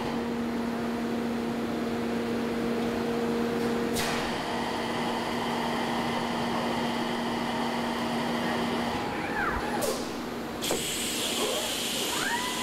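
Factory machinery in an industrial robot cell: a steady machine hum that drops away partway through, short rising whines around nine and twelve seconds in, and a burst of hiss near the end.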